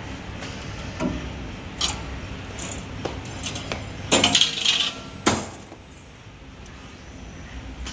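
CNC 3D wire bending machine at work: sharp metallic clicks and clinks, with a denser clatter about four seconds in and one last click just after five, over a steady low hum that drops away soon after.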